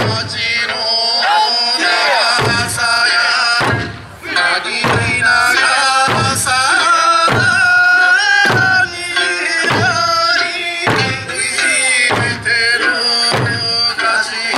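Okinawan eisa drumming and song: the troupe's large barrel drum and small hand drums struck together on the beat, about once every 1.2 seconds, under a continuous sung folk melody.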